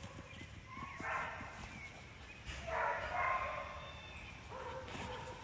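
A young dog whining in a few drawn-out, high cries, the loudest around three seconds in and shorter, lower ones near the end, while it is held at sit before a retrieve.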